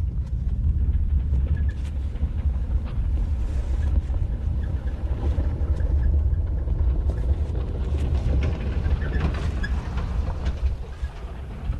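Continuous deep rumble with scattered crackles and clicks, cutting off suddenly at the end.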